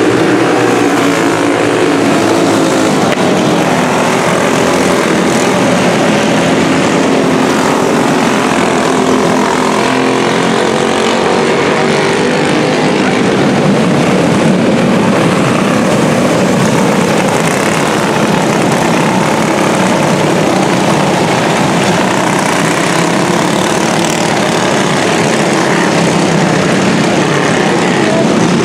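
A pack of junior champ racing karts' small engines running together around a dirt oval, several engine notes overlapping and rising and falling as the karts go through the turns.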